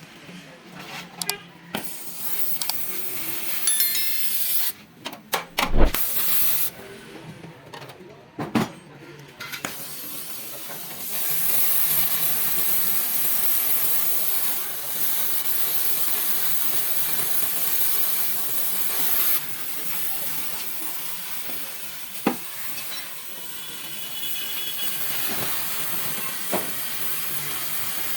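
Several sharp metal clanks and knocks, then from about eleven seconds in a steady, loud hiss of compressed air.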